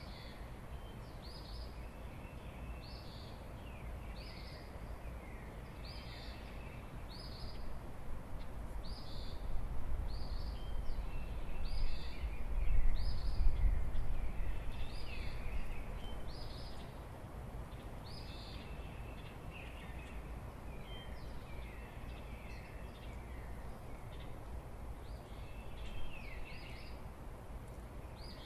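Songbirds calling in the dawn chorus: short high notes repeated about once a second, with lower notes in between. A gust of wind rumbles on the microphone in the middle, the loudest part.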